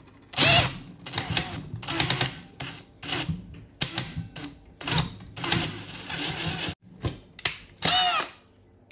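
A drill with a 5.5 mm bit boring through a steel handle tube in short, uneven stop-start runs, with brief squeaks as the bit bites into the metal. It falls quiet just before the end.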